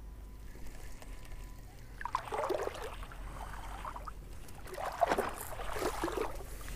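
A knit jacket sleeve rustling and brushing against a chest-mounted microphone as an angler works a spinning rod and reel, in irregular bursts about two seconds in and again around five seconds.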